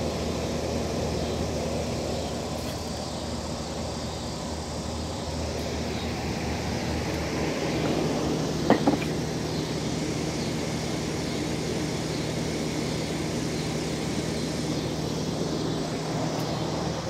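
Steady low mechanical hum over a broad rumble, with one brief sharp sound about nine seconds in.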